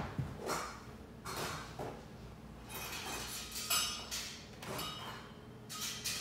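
Soft, irregular shuffles and rustles of a person walking across a tile floor and sitting down in a recliner.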